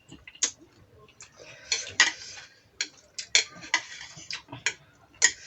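Scattered sharp clicks and taps of eating utensils against dishes during a meal.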